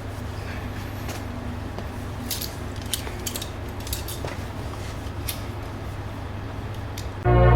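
Several sharp, separate clicks over a steady low hum, then loud music with bells cutting in suddenly near the end.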